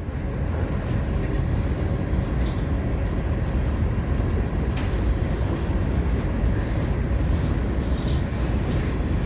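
Florida East Coast Railway freight cars rolling past: a steady low rumble of wheels on the rails, with a few faint clicks from the wheels now and then.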